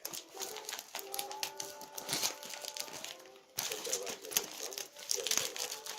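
Plastic parcel packaging being handled and opened: a dense run of crinkling and small clicks, pausing briefly about three and a half seconds in before going on.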